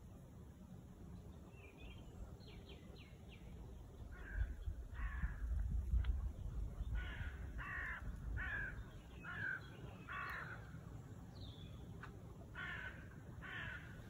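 A crow cawing repeatedly: about ten short harsh calls, roughly two a second, starting about four seconds in, with a pause before the last two. A low rumble runs underneath, strongest during the first calls.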